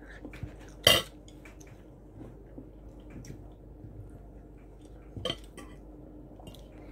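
A fork and chopsticks clinking against plates during eating, with a sharp knock about a second in and another about five seconds in, and smaller clicks between them.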